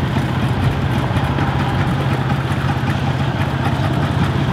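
An engine idling steadily nearby: a constant low hum with a rough mechanical rattle over it, unchanging in level.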